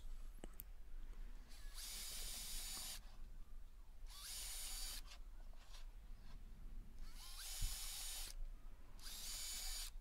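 Bosch cordless drill boring pilot holes into a wooden board: four short runs of about a second each, with pauses between them, each starting with a brief rise in pitch.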